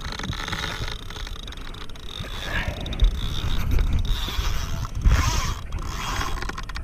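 Heavy spinning reel and rod being worked against a big hooked fish: mechanical clicking and scraping from the reel over the low rumble of water and wind around the kayak, with surges about three and five seconds in.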